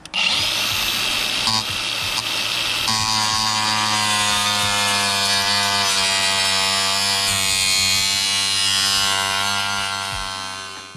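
Angle grinder with a cut-off wheel running and cutting into corroded steel, a steady high whine over harsh grinding hiss. The whine grows clearer about three seconds in, and the sound tails off near the end.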